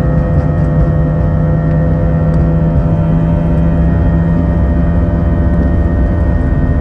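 Steady cabin drone of an Airbus A321-231 with its IAE V2500 turbofans at high thrust for takeoff and climb: a loud, even rush with several steady humming tones.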